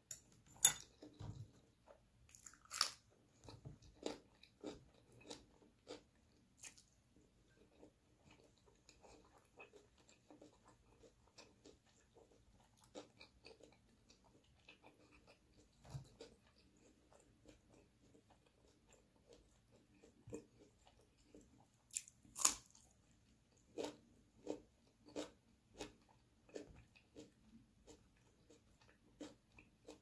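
Close-miked eating sounds: crisp crunching bites of raw cucumber and wet chewing. The crunches come as single sharp strokes with pauses between them, loudest about two-thirds of the way through, followed by a run of steady chewing at about two strokes a second.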